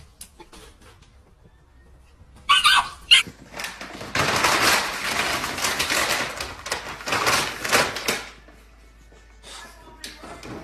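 A puppy crinkling and dragging a clear plastic bag across a floor, a long rustling that starts about four seconds in and stops about four seconds later. Shortly before it, a dog gives two short high-pitched yips.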